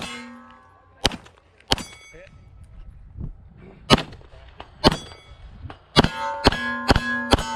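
Pistol shots at steel targets, each hit ringing the steel plate with a clang. The shots come about a second apart at first, then four in quick succession near the end, with the plates ringing on.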